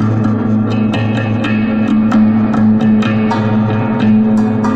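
Homemade cigar-box spring box played with a thin stick and amplified through a guitar amp. A steady low drone sounds under a quick run of sharp metallic spring strikes, several a second.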